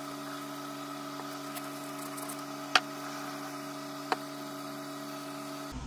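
Steady electric hum with a few even pitched tones, broken by two sharp clicks about a second and a half apart.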